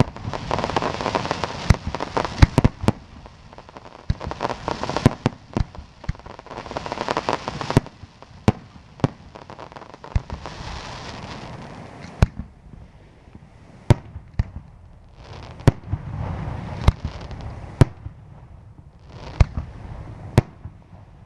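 Aerial fireworks display: sharp shell bursts go off throughout, over long stretches of dense crackling in the first half. In the second half the crackling stops and the bangs come further apart, with a low rumble between them.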